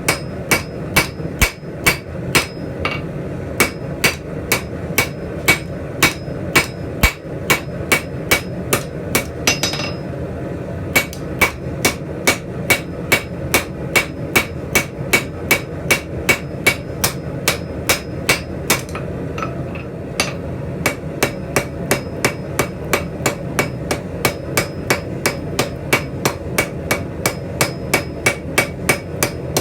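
Hand hammer striking steel on an anvil, about two blows a second, each with a ringing tone, pausing briefly twice, over a steady low hum.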